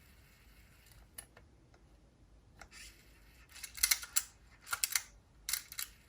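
Small sharp plastic clicks from a cassette Walkman being handled and operated. There is one click about a second in, then three quick clusters of clicks in the second half.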